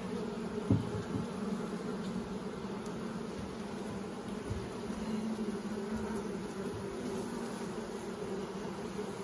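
Honeybee colony buzzing in an opened hive: a steady, even hum from many bees. A light knock a little under a second in as a wooden frame is handled.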